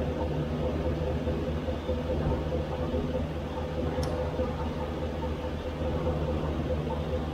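A Silverado 2500HD's 6.0L V8 idling steadily under the open hood, a constant hum with a steady whine over it.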